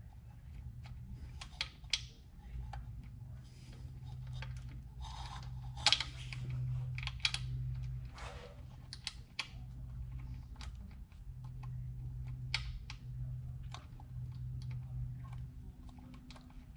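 Small metal parts and hand tools being handled during fiddly work on an engine: scattered light clicks and clinks at irregular intervals, over a steady low hum.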